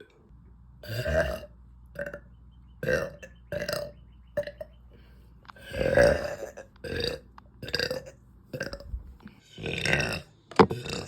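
A young woman burping again and again: about a dozen separate short burps, the longest about six seconds in. A very short, sharp burst near the end is the loudest moment.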